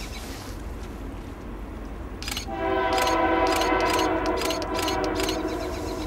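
Locomotive air horn sounding a single sustained chord, starting about two and a half seconds in and held for about three seconds, with a run of sharp clicks alongside it.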